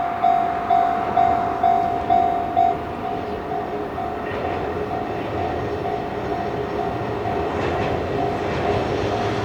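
Japanese level-crossing warning bell ringing about twice a second. From about three seconds in, a passing train's rumble rises and the bell sounds fainter under it.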